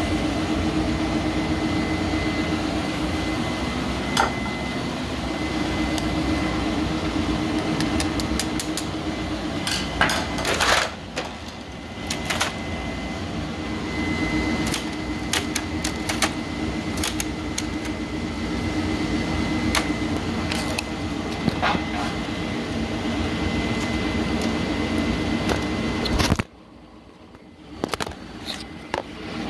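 Steady mechanical hum with a thin high whine, broken by scattered clicks and knocks; the hum cuts out abruptly about 26 seconds in.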